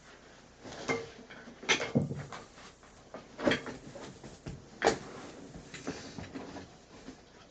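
Handling noises: about five sharp knocks and clatters of objects being moved, with lighter rustling and taps between them.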